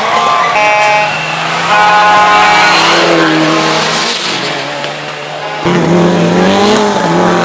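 A Mitsubishi Lancer Evolution rally car's turbocharged four-cylinder engine revving hard on a rally stage. The pitch climbs in steps, sags, then jumps with a sudden surge of revs about three-quarters of the way in.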